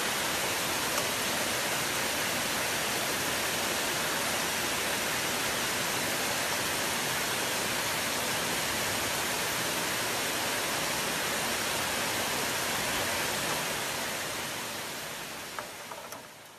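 Heavy rain pouring steadily onto a street and trees, a dense even hiss that fades out over the last few seconds.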